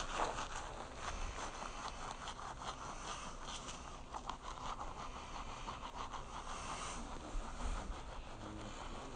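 Toothbrush scrubbing teeth: a run of quick, irregular scratchy brushing strokes.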